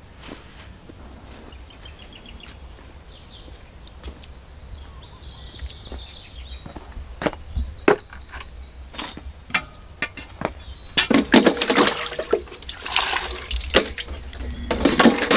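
Footsteps in rubber boots and scattered knocks as a bucket and a steel basin are handled and set down, with faint high chirping in the background. A louder run of clattering and knocking comes in the last few seconds.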